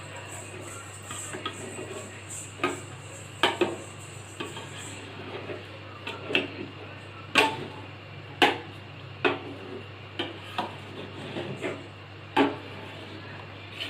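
A utensil mashing boiled garlic cloves in hot milk in a saucepan, knocking against the pan in irregular clinks, about a dozen of them, loudest a little past halfway. A steady low hum runs underneath.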